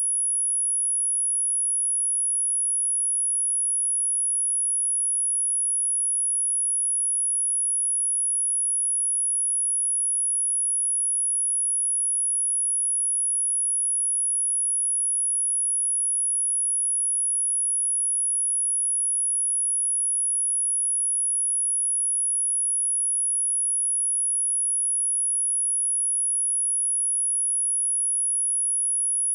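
A steady, pure 10297 Hz sine-wave test tone: one constant high-pitched whistle-like tone, unchanging in pitch and loudness, used for speaker testing and speaker cleaning.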